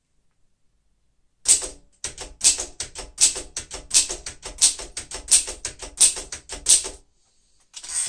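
1940 Royal Signet manual typewriter being typed on: a quick run of sharp clacks as the typebars strike the paper, starting about a second and a half in. A short pause comes about seven seconds in, then a few more clacks near the end.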